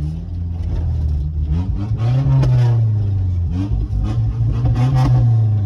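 1997 Nissan pickup's engine heard from inside the cab, revving up and dropping back twice as the truck is driven through the gears of its manual transmission, with the cab rattling.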